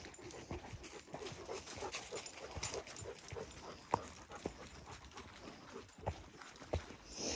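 Footsteps of a person and two Great Danes walking over a dirt forest trail strewn with leaves and twigs, an uneven patter of steps about two a second, with a sharper click about four seconds in and a couple more near the end.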